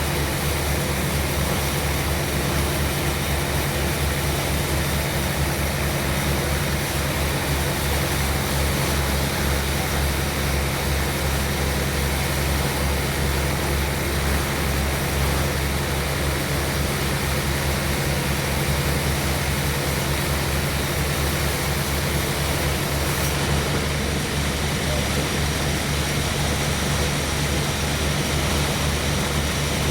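Sawmill machinery running steadily, a continuous low engine drone with dense mechanical noise above it.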